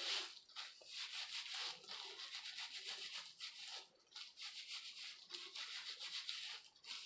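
Hands in thin plastic gloves rubbing hair bleach into wet hair and scalp: a quick run of scratchy rubbing strokes, with a short pause about four seconds in.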